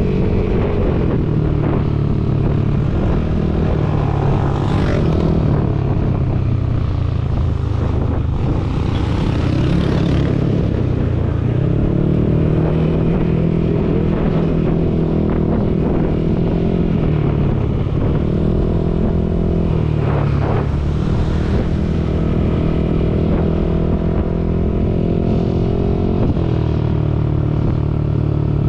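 Yamaha Aerox 155 scooter's single-cylinder engine running under way, its note rising and falling several times with the throttle.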